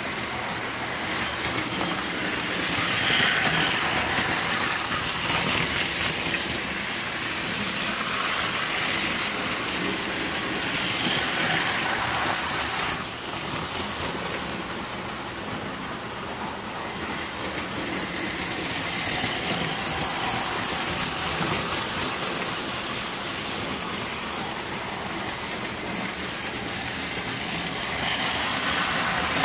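Lionel tinplate toy trains running on tubular metal track: a steady rumble and clatter of metal wheels and electric motors, swelling louder and fading again several times as trains pass close.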